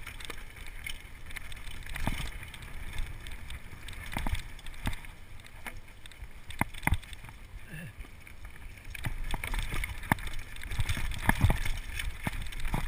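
Downhill mountain bike rattling over rough trail: irregular sharp knocks and clacks from the bike over a low rumble of tyres and wind noise.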